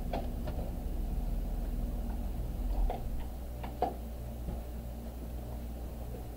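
A steady low hum with a handful of light clicks and knocks scattered through it, two close together near four seconds in.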